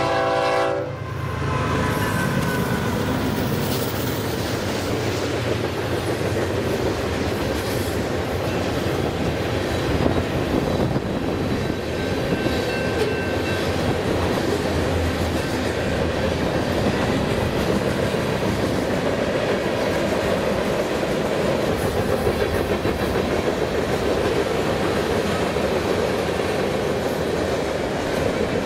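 A freight train's multi-chime horn cuts off about a second in. The train then rolls steadily past at close range, its wheels clicking over the rail joints in a constant rumble.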